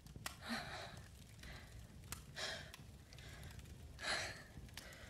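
A young woman's heavy, shaky breathing: three audible breaths about two seconds apart, the last the loudest, with faint small clicks between them.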